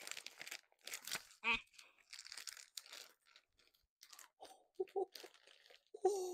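Plastic mailing bag crinkling and tearing as it is pulled open by hand, in irregular rustling bursts.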